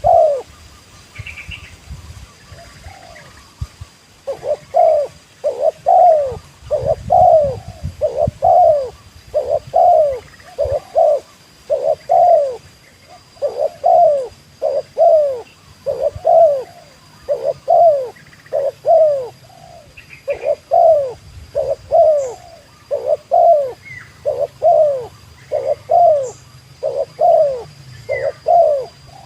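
Spotted dove cooing: a long run of short coos, each sliding down in pitch, about two a second, starting about four seconds in. Faint chirps of other small birds sound now and then.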